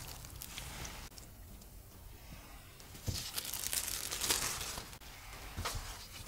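Plastic cling film crinkling and rustling as it is handled and peeled off coiled dough buns, loudest from about three to five seconds in.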